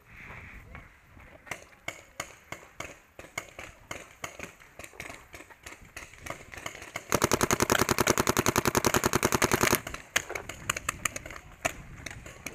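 Paintball markers firing: scattered single shots, then about seven seconds in a fast, even burst of roughly fifteen shots a second that lasts nearly three seconds and is the loudest sound, followed by more scattered shots.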